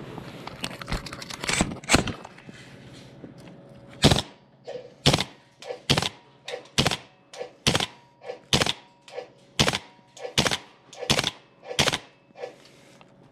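King Arms TWS 9mm gas blowback airsoft rifle firing single shots in semi-auto, each a sharp crack of the gas-driven bolt cycling. A few light clicks and two shots come in the first two seconds, then a pause, then about ten shots in a steady rhythm somewhat under a second apart.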